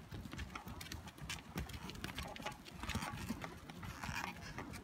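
Irregular hard clicks and knocks of steps on a stony mountain trail, several a second, over a low rumble.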